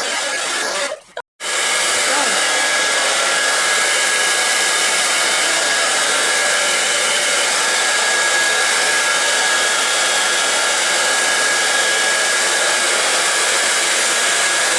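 Remington Mineral Glow 2200 W ionic hairdryer blowing steadily, with a faint high whine in the airflow. It drops out for a moment about a second in, then runs on and cuts off suddenly at the end.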